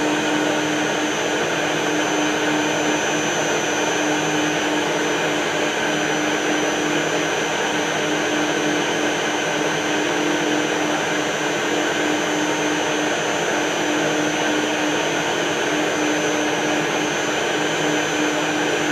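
Metal lathe running steadily, a continuous motor whine with a strong even hum and no breaks or cutting knocks.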